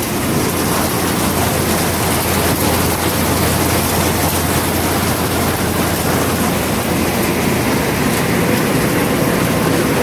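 Combine harvester running steadily while cutting rice: a dense, even mechanical noise with a constant low hum underneath.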